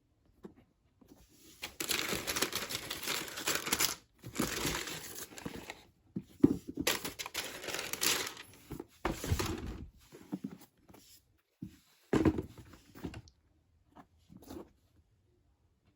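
Shoe-box packaging being crinkled and handled in several bursts of a few seconds each, then a few faint clicks near the end.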